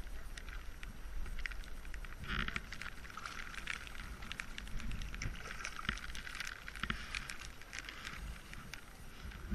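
Water splashing and dripping close around a sea kayak being paddled, with many small, quick splashes, over a low wind rumble on the microphone.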